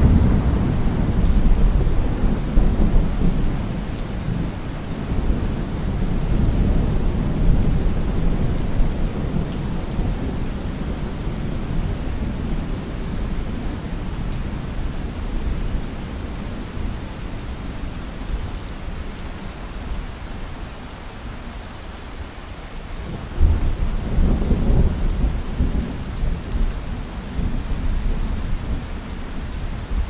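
Thunderstorm: steady rain with rolling thunder. A long low rumble opens and fades over several seconds, then a second thunderclap breaks in suddenly about three-quarters of the way through and rumbles on.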